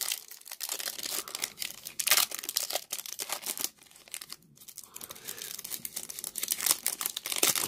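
Foil trading-card pack wrapper being torn open and crinkled by hand: a run of irregular crackles, with a short lull a little past halfway.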